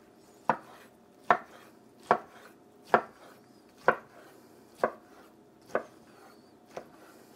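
A long knife chopping a soft smoked cabbage wedge on a bamboo cutting board: eight even strokes, about one a second, each ending in a sharp knock on the board, the last two lighter.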